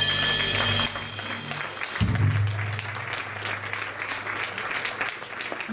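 A live blues band holds its final chord, which cuts off less than a second in. The audience then applauds, and one last low note rings briefly under the clapping about two seconds in.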